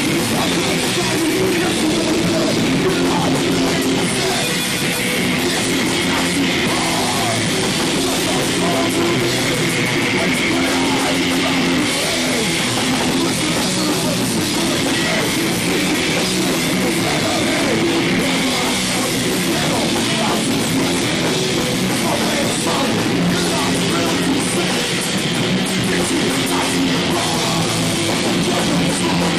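Punk band playing live: distorted electric guitars, bass and drums, loud and steady throughout.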